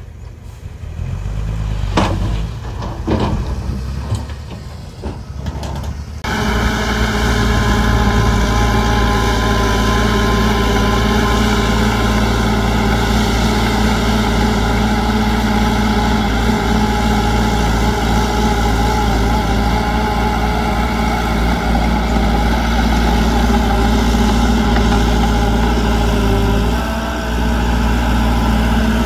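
Heavy construction-machine diesel engine running steadily. In the first seconds it is quieter, with a few clanks. About six seconds in it suddenly comes in much louder.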